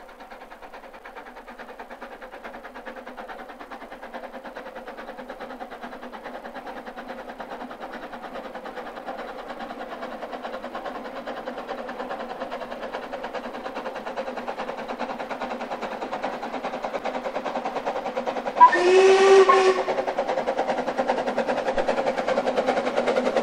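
Narrow-gauge steam locomotive, a Double Fairlie, working a train uphill towards the listener, its rapid exhaust beats growing steadily louder. Late on it gives one whistle blast of about a second.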